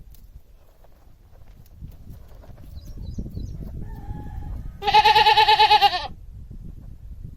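Domestic goat bleating: one loud, wavering call about a second long, past the middle, with a faint shorter call just before it. A low rumbling background runs underneath.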